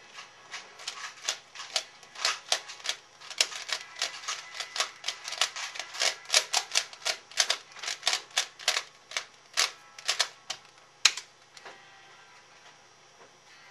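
C4U 3x3x3 speedcube being turned by hand in quick, irregular runs of plastic clacks, several a second: the cube being scrambled between solves. A sharper click comes about eleven seconds in, then the turning stops.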